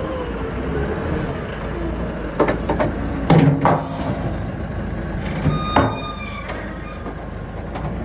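Compact wheel loader's engine running steadily, with a few metal clanks in the middle as its hydraulic quick coupler meets and latches onto the bucket, the last one a ringing clang.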